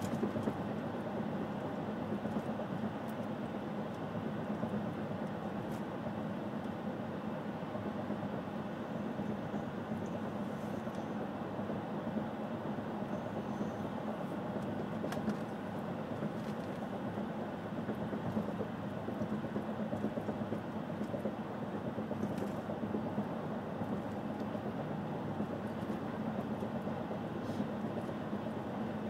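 Steady road and engine noise of a car being driven, with a low hum under an even rush of tyre noise.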